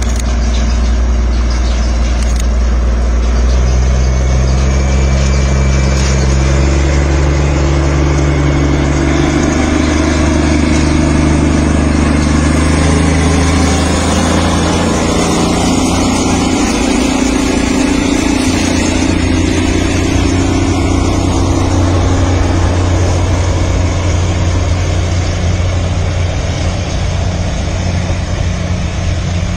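Motor engine running steadily with a low drone, its pitch shifting in steps several times, over a constant rumble of motion noise.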